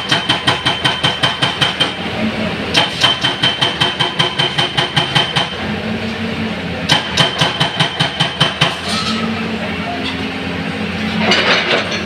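Excavator-mounted hydraulic breaker hammering concrete in rapid, evenly spaced strikes, about eight a second, in three runs of two to three seconds each, with a ringing tone on every strike. Between the runs the excavator's diesel engine keeps running, and there is a brief rattling burst near the end.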